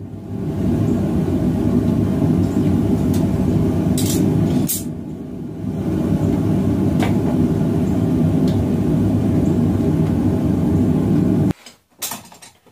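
Propane forge burner running with a steady low roar, with a few light clicks over it; the roar dips briefly midway and stops abruptly near the end.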